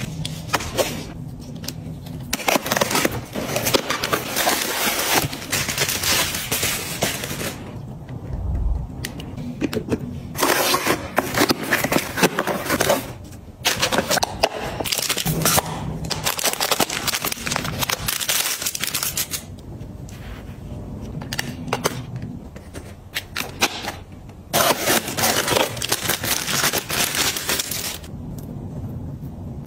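Crinkling and rustling of packaging being handled, such as sheet-mask pouches, a cardboard box and a paper tube, with many sharp clicks and taps. It comes in stretches of a few seconds with short quieter gaps between them.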